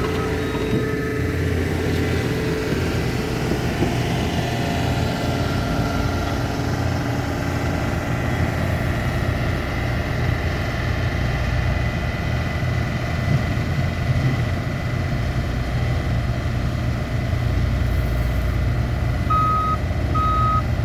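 Heavy construction machinery engines running steadily on a paving site. A vehicle's reversing alarm beeps three times near the end.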